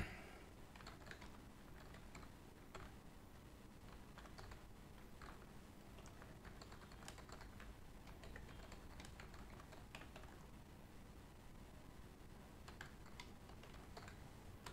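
Faint, irregular key clicks of typing on a computer keyboard.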